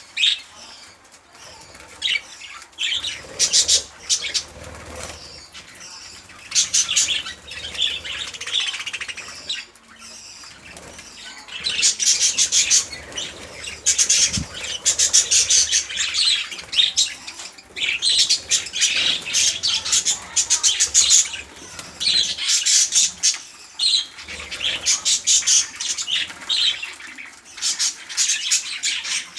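Budgerigars chattering, with bursts of rapid, high twittering and chirps that come and go every few seconds.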